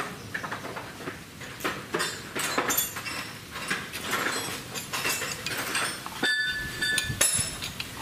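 Irregular metal knocks and clinks of hand tools on steel parts, with a short high ringing tone about six seconds in.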